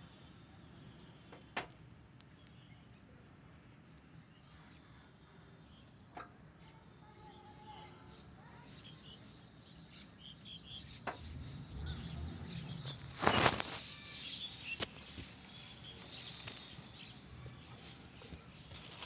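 Quiet outdoor background with faint bird chirps, a few light clicks, and one short loud knock about two-thirds of the way through.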